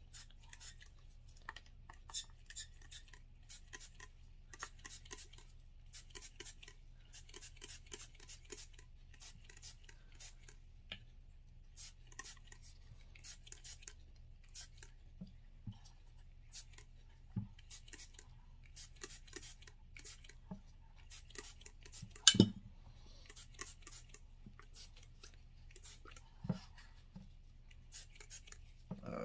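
Short spurts of gun-cleaning solvent sprayed from a can onto a disassembled pistol frame, many quick sprays in runs, with light clicks of the polymer frame being handled and turned. One sharper knock comes about three quarters of the way through.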